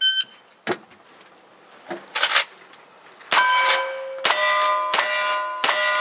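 An electronic shot timer gives a short beep, then gunshots follow, about half a dozen. The first few are spaced out, and the later ones come roughly every two-thirds of a second. Each hit is followed by the bell-like ring of steel targets.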